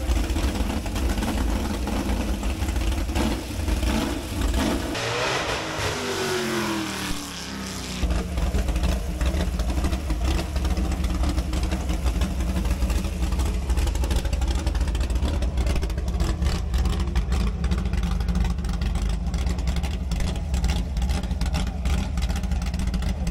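Open sports-racing car's V8 with velocity-stack intakes running in the paddock. It is revved once about five seconds in and falls back over a couple of seconds, then settles into a steady idle.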